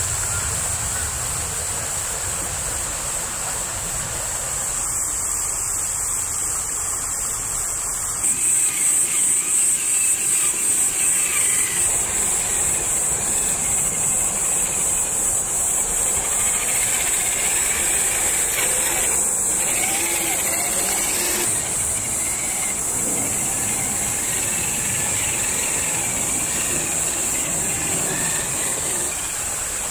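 Electric motor and gears of a Traxxas TRX-4 scale RC crawler whining as it crawls over rock. A steady high-pitched drone runs underneath and starts pulsing about twice a second some eight seconds in.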